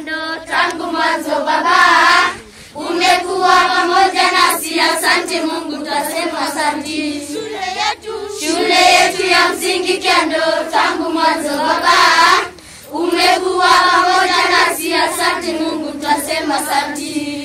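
A group of schoolchildren singing together as a choir, in phrases broken by short pauses for breath.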